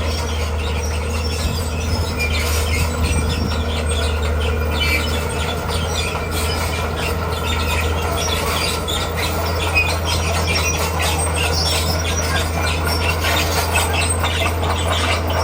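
Komatsu D41P crawler bulldozer at work: its diesel engine runs steadily under a constant high squealing and clanking of the steel tracks and the scrape of rock being pushed.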